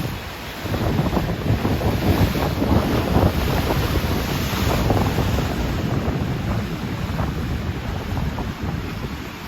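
Rough ocean waves churning and breaking, a continuous surging wash, with wind buffeting the microphone as a low rumble.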